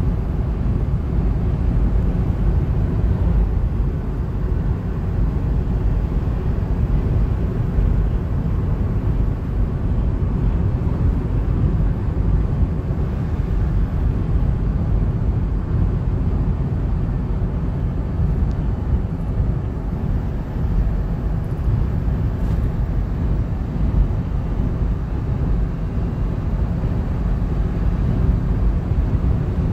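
Cabin noise of a car driving on an expressway: a steady low rumble of tyres on the road and engine.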